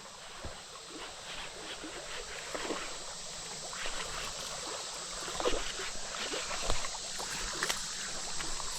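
Shallow creek water running steadily, with small splashes every second or two.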